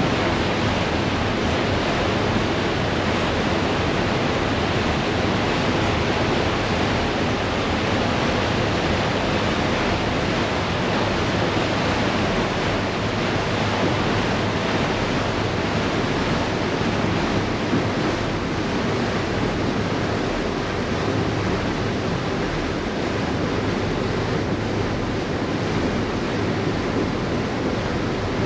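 Steady rushing and churning of water in a harbour ferry's wake, with a low steady drone of the ferry's engines underneath.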